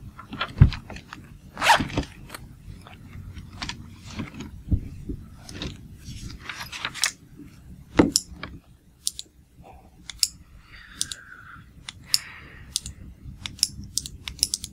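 Small desk-top handling noises: a zippered pencil case being opened and rummaged, then a retractable pen clicked over and over at an uneven pace.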